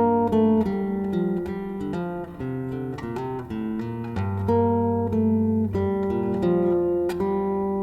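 Solo acoustic guitar playing a slow, improvised-sounding passage of plucked single notes and chords over held bass notes.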